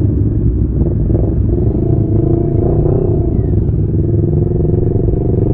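CFMoto 400NK parallel-twin motorcycle engine running steadily under way, over a low rumble of wind and road noise; the engine pitch rises slightly and eases off about three seconds in.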